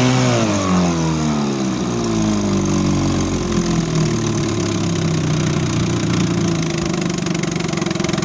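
1954 Johnson QD-15 10 hp two-stroke twin outboard motor running in a test tank. Its speed falls over the first few seconds, then it settles into a steady idle.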